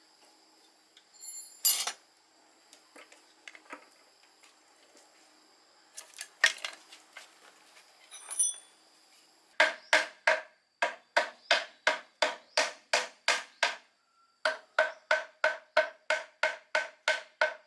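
Scattered clinks of metal tools and parts being handled, then a steady run of hammer blows on ringing metal, about three a second, with a short pause partway through.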